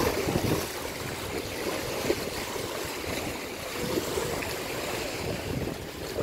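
Fast-flowing river water churning and splashing against a muddy bank: a steady rushing noise.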